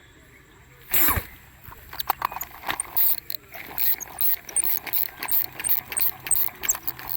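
A fishing reel clicking quickly and unevenly as line is wound in, after one loud rushing sound about a second in.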